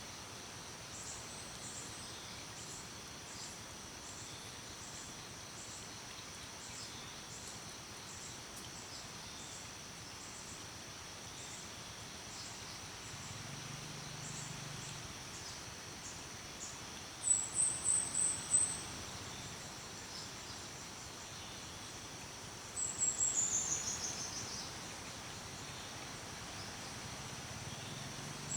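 Outdoor nature ambience: a steady high insect drone with a faint repeating chirp about twice a second. A bird breaks in twice, first with a quick run of high notes, then with a series of notes falling in pitch.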